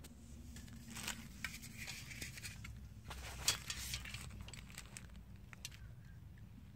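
Faint handling noises: scattered light clicks and crinkling of plastic sheeting as small parts are positioned by hand.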